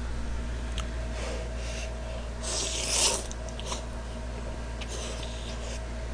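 A man slurping jjamppong noodles: one long slurp about two and a half seconds in, with a few faint clicks around it over a steady low hum.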